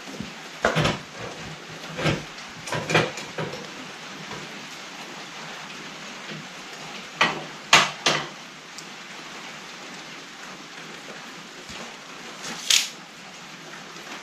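Irregular metal clanks and knocks from parts and tools being handled on a workbench, in small clusters, loudest about eight seconds in, over a steady hiss.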